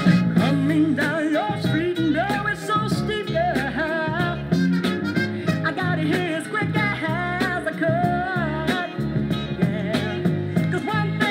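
Soul record playing on a turntable: a band with a lead melody line that slides and wavers over a steady low accompaniment.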